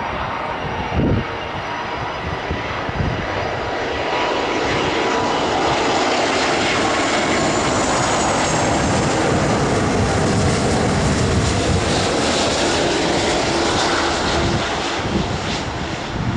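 Jet engines of a twin-engine Airbus A330 freighter on final approach, a steady rushing noise that grows louder over the first few seconds as the aircraft comes close, with a faint falling whine. Wind gusts on the microphone at the start and near the end.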